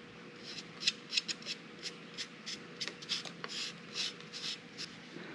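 Hands handling and turning over tractor hydraulic filters: an irregular string of short, light rustles and scrapes.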